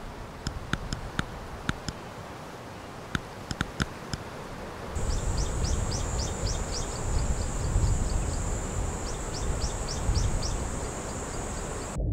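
Nature ambience of birds and insects. At first there are scattered short high chirps over a low rumble. About five seconds in, a steady high insect drone starts, with quick runs of bird chirps over it, and everything cuts off suddenly near the end.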